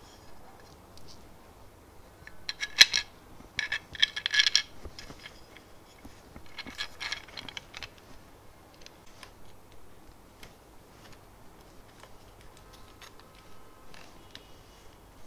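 Small metal fasteners clinking and rattling as they are handled and fitted to a small 3D-printed plastic part. The jingling clicks come in three short bursts in the first half, then fainter scattered ticks.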